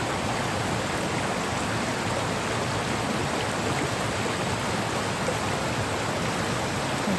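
Steady rushing of a forest stream: an even wash of water noise with no breaks.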